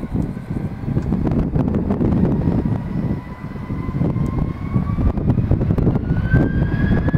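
Gusty wind buffeting the microphone, the loudest sound, with a passenger jet's engine whine gliding slowly upward in pitch underneath.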